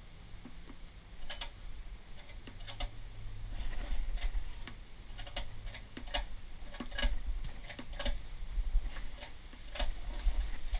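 Irregular light clicks and taps from hands working the recoil pull-start assembly of a Suzuki 2.5 HP outboard while a new starter cord is fitted, over a low steady hum.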